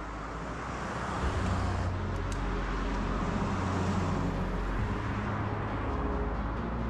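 Cars driving past on an asphalt road: tyre and engine noise swells about a second in and stays steady.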